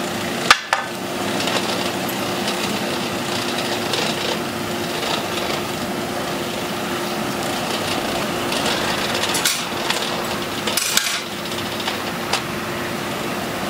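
Blacksmith's forge fire with its blower running steadily, a constant rushing hum while a ring heats toward an orange heat for forge welding. A few sharp knocks cut through, one about half a second in and several between nine and twelve seconds in.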